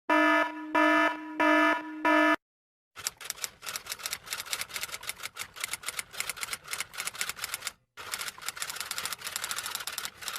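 Four short electronic beeps in quick succession, then after a brief pause a long run of rapid typing clicks, broken once near the end.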